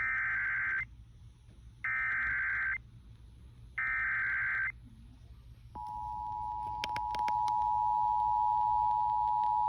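Emergency Alert System tones: three bursts of the SAME digital header, each just under a second long and about a second apart, announcing an emergency alert (here a severe thunderstorm warning). About six seconds in, the steady two-tone EAS attention signal starts and holds, with a few faint clicks over it.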